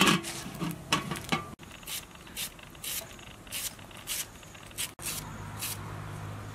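Kitchen knife slicing through a hand-held onion, short cutting strokes about two a second. It opens with a brief louder clatter.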